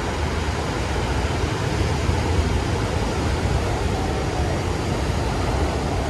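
Steady rushing noise of ocean surf and wind on the microphone, with a low rumble and no single sound standing out.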